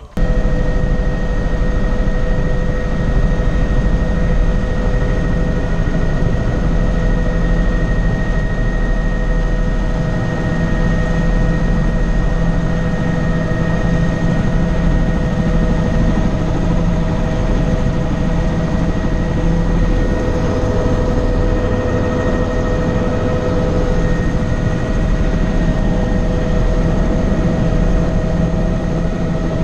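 Helicopter engine and rotor running steadily, heard from inside the cabin: a constant whine over a low drone, cutting in suddenly at the start.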